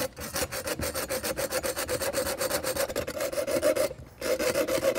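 Small hacksaw cutting through a 1/8-inch steel rod clamped in a vise: quick back-and-forth strokes with a ringing note under them, a brief pause about four seconds in, then a few more strokes.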